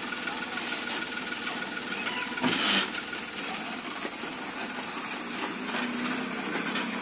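Small pickup truck's engine running as the truck pulls away loaded with a mini excavator, with a single clunk about two and a half seconds in and the engine getting louder in uneven swells a second or so later.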